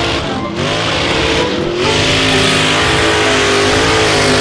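Mud truck on giant tyres with its engine revving hard while ploughing through a mud pit. The revs dip and climb back twice in the first two seconds, then hold high.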